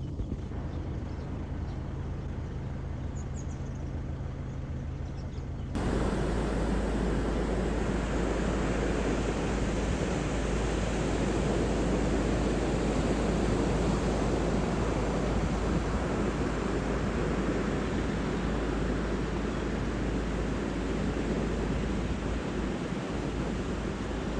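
4WD vehicle driving, heard from inside. At first there is a steady low engine hum. About six seconds in it switches abruptly to a much louder, even rush of tyre and wind noise that holds from then on.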